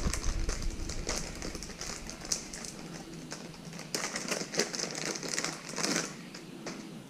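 Unboxing handling noise: packaging and small plastic parts being rustled and clicked, in irregular crinkles and taps.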